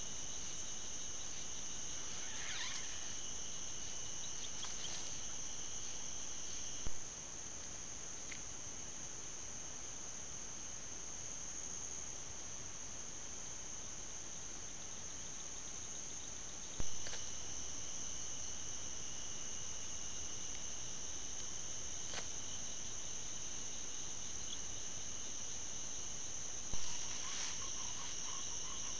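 Steady high-pitched chorus of night-singing insects, continuous throughout, with a brief click three times, about ten seconds apart.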